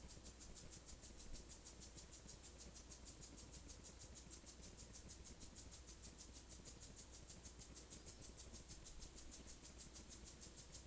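Faint background ambience: a steady high-pitched pulsing, about five pulses a second, over a low hum.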